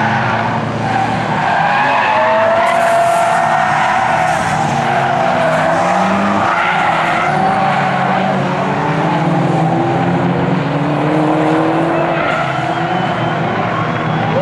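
Car engines revving hard with long, wavering tyre squeals as cars slide through a track corner.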